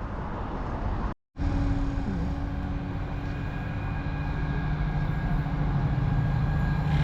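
A diesel train approaching, with a steady engine drone that grows gradually louder. The sound cuts out briefly about a second in.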